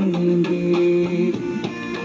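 Music with a held melody over a steady drum beat.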